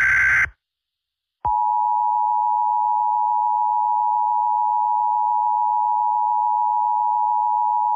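Tail of an Emergency Alert System SAME header data burst, a short digital screech, then a second of silence, then the EAS attention signal: a steady two-tone alert tone that starts about a second and a half in and holds without change.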